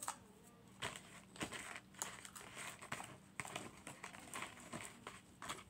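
Close-up eating noises: chewing, and a cardboard Chicken McNuggets box crinkling as it is handled. It comes as a run of irregular short crackles and rustles.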